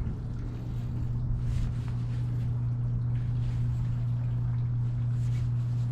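A steady low mechanical hum at one unchanging pitch, over an uneven low rumble.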